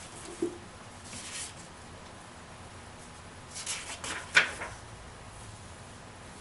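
Pages of a hardcover book being turned: a short papery rustle ending in a sharp flick about four seconds in.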